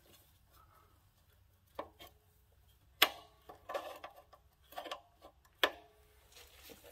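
A few sharp metallic clacks and clinks of a hand clamp and steel parts being set against a motorcycle's steel swing arm, some with a short ring after them. The loudest comes about three seconds in, another a little past five and a half seconds.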